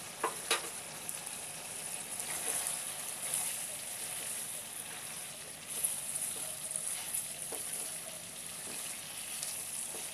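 A chicken gizzard and liver curry with potatoes sizzles steadily in oil in a nonstick wok while a silicone spatula stirs it, with a few light clicks from the spatula against the pan.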